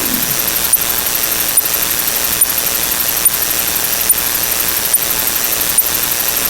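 Steady static hiss, like a white-noise sound effect, with a short click repeating at an even pace a little faster than once a second.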